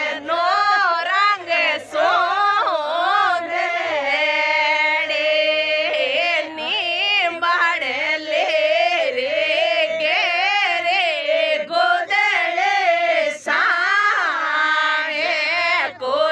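A woman singing a Rajasthani wedding folk song (vivah geet), her voice bending between notes, with one long held note about four seconds in.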